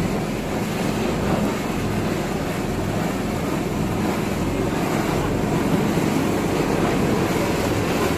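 Sago processing machine running with a steady, continuous mechanical drone.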